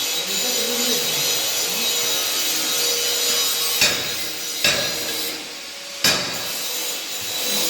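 Stick (shielded metal arc) welding arc crackling and hissing steadily. The arc drops out briefly past the middle and is struck again with a sudden crack.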